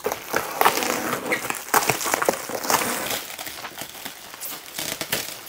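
Plastic cellophane wrap around a shipping box crinkling irregularly, with small crackles, as it is cut through and pulled off.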